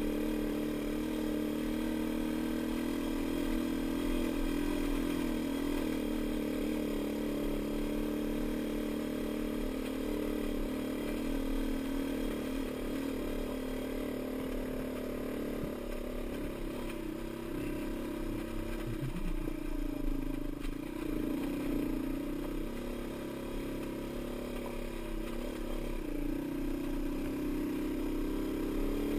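Dirt bike engine running steadily at low speed while the bike is ridden over a rocky trail. Its note drops and wavers partway through, then steadies again near the end.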